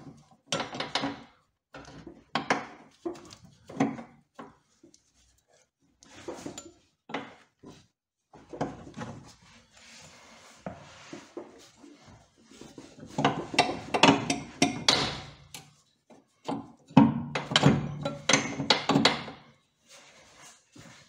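Metal clinks and knocks of a steel bolt being worked through a Fiat Panda's rear suspension arm and its mounting bracket. The knocks are irregular, with two flurries of rapid knocking in the second half.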